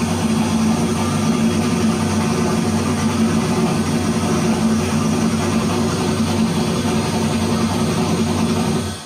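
Turbocharged 5.3 LS V8 running steadily at idle, cutting off suddenly near the end.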